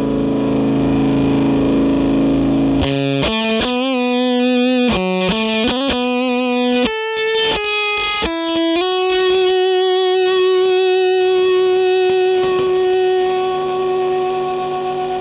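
Electric guitar played through the B1 fuzz-distortion pedal, a silicon Tone Bender-style fuzz feeding a Rat-style filter. It holds a distorted chord for about three seconds, then plays a quick single-note lead line with vibrato, and ends on one long sustained note.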